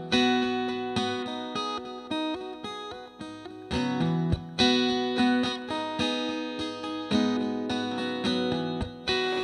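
Background music: an acoustic guitar strumming and picking chords, each chord ringing out and fading before the next.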